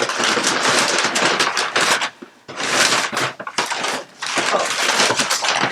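Packaging being torn open and handled: dense crinkling and rustling with many small clicks, pausing briefly about two seconds in and again near four seconds.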